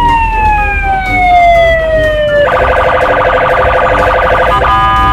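Electronic police siren: a loud tone that slides slowly down in pitch for about two seconds, then switches to a rapid pulsing warble, which briefly holds steady near the end.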